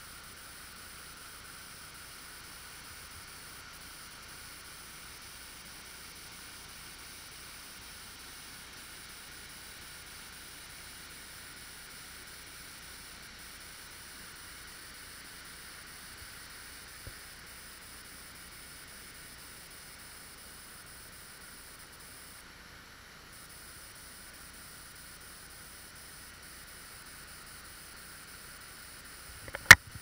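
A steady, even hiss, with a faint tick about halfway through and one sharp knock just before the end.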